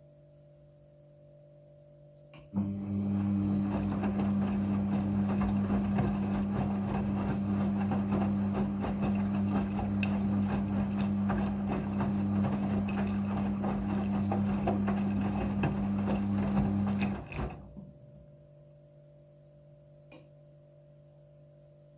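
Front-loading washing machine in its rinse cycle: a pump or water valve switches on with a steady electrical hum and rushing water, runs for about fifteen seconds, then cuts off.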